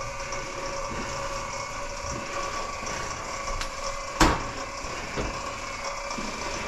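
Drain-cleaning machine running steadily, turning its cable down a grease-clogged kitchen drain line, with a single sharp knock about four seconds in.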